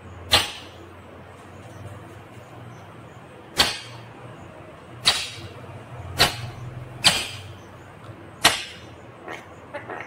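Indian ringneck parrot giving six short, sharp screeches at uneven intervals, followed near the end by a few softer, quieter calls.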